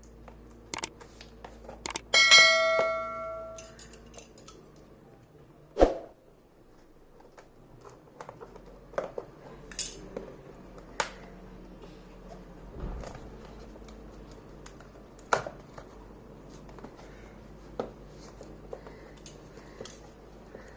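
Handling noise from unpacking a keyboard box: scattered clicks, taps and a few knocks of packaging being handled. About two seconds in, something metal is struck and rings, fading over about a second and a half.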